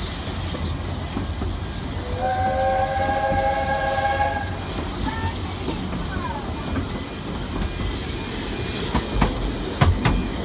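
Train running with a steady carriage rumble, while the locomotive ahead sounds one long warning blast of its chord whistle, several notes held together for about two and a half seconds, for the level crossing. A few sharp knocks from the wheels come near the end.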